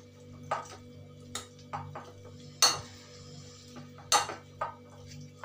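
Hand potato masher knocking and clinking against a glass bowl while mashing boiled potatoes, in irregular strokes, the loudest two about two and a half and four seconds in.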